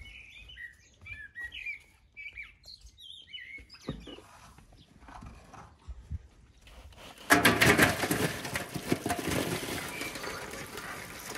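Small birds chirping, then about seven seconds in a sudden loud clatter that keeps going: live crayfish tipped from a steel bowl into a metal tub, their shells rattling and scraping against the metal.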